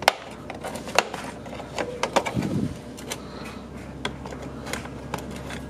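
Plastic trim pry tool working under a car's door sill plate, making a series of sharp clicks and snaps as the plate's clips are popped loose, the loudest right at the start and the rest spaced about a second apart.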